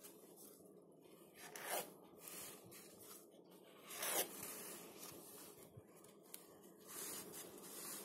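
Paper and card rustling and sliding as a handmade card's folded photo strip and panels are handled, with two louder brushing swishes, about a second and a half and about four seconds in.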